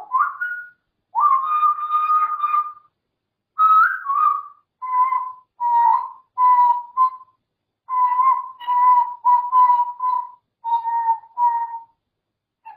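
African grey parrot whistling: a short rising note, a long held whistle, then a run of about a dozen short whistles at nearly the same pitch, with a brief pause partway through.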